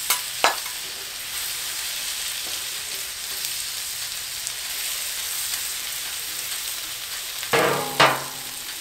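Sliced potatoes sizzling in melted butter on a hot Blackstone flat-top griddle, a steady hiss with a couple of light clicks at the start. Two brief vocal sounds come about seven and a half seconds in.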